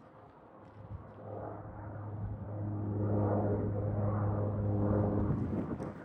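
Cessna 208B Grand Caravan's single Pratt & Whitney PT6A turboprop at takeoff power, a steady low propeller drone with overtones that swells as the aircraft goes by and drops off sharply about five seconds in.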